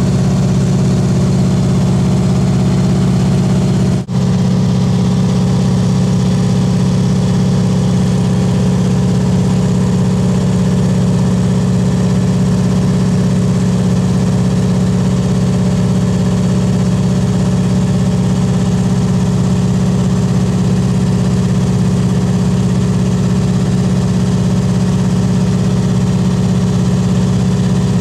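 Steady drone of a small high-wing plane's piston engine and propeller, heard from inside the cabin in level cruising flight. The sound drops out briefly about four seconds in.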